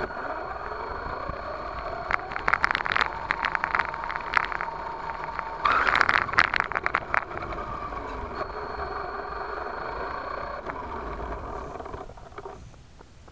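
1/10-scale RC monster truck driving on a dirt track, heard from its onboard camera: the motor and gears whine, rising and falling in pitch with speed, while gravel crackles and clicks under the tyres. About six seconds in comes the loudest stretch, a burst of rattling knocks as the truck bounces over rough ground. Near the end it slows and the sound dies down.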